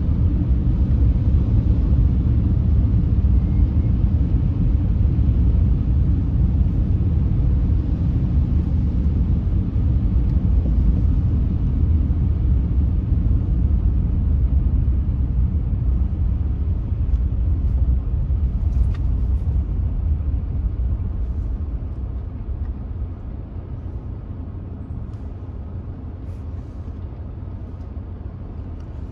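Steady low rumble of a car driving, road and engine noise, which dies down over the last several seconds.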